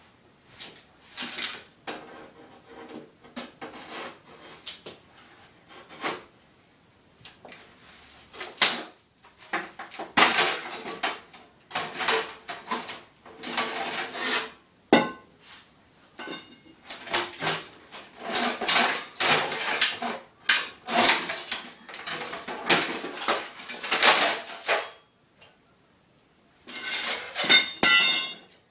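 Sheet-metal desktop computer case being bashed and wrenched apart: irregular metal clanks, scrapes and rattles of loose panels and parts, with a short pause near the end followed by a burst of fast rattling.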